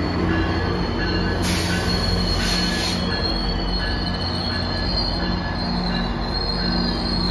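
GO Transit bilevel coaches and an MP40PH diesel locomotive moving past, the wheels squealing in a high thin tone over a steady rumble of wheels on rails and a low engine hum. A brief hiss comes twice, from about one and a half to three seconds in.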